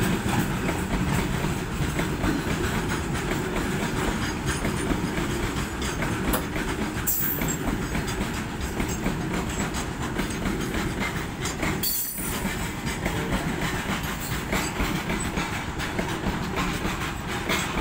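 Freight train of loaded, tarpaulin-covered open wagons passing close by: a steady rolling rumble with the rhythmic clickety-clack of wheels over rail joints.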